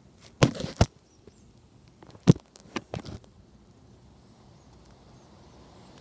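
A few sharp knocks and clicks: two close together about half a second in, a louder single one a little after two seconds, and two fainter ones near three seconds.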